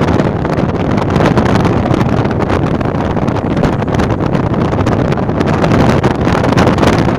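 Steady wind buffeting the microphone, with tyre and road noise from a vehicle driving at highway speed, picked up through an open side window.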